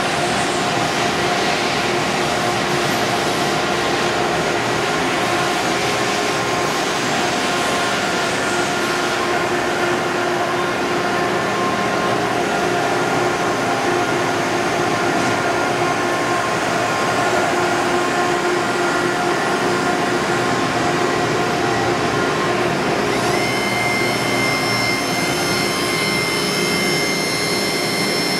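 Tsugami BW12-III Swiss-type CNC screw machine running: a steady mechanical hum with several steady whining tones over it. About 23 seconds in, a higher whine of several tones sets in and holds.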